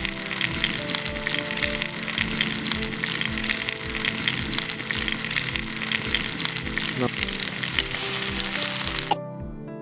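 Potato cubes frying in hot oil in a metal pan, a dense crackling sizzle while being stirred with a spatula. The sizzle gets brighter about eight seconds in, then cuts off about a second later. Background music with a steady beat plays throughout.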